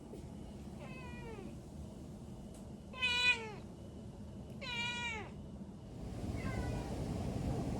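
A cat meowing four times, each call falling in pitch at its end, the second the loudest. A low hum of traffic swells near the end.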